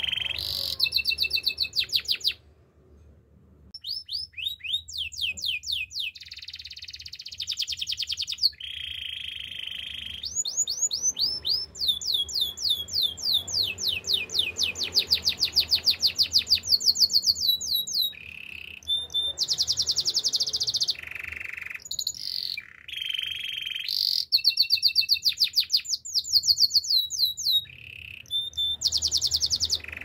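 Domestic canary singing a long song of rapid trills, runs of quick repeated falling notes alternating with buzzier rolls, with a short break about three seconds in.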